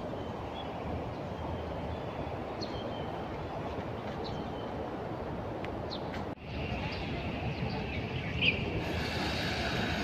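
Steady low outdoor rumble, with a few short, high bird chirps over it; the sound dips out briefly a little after halfway.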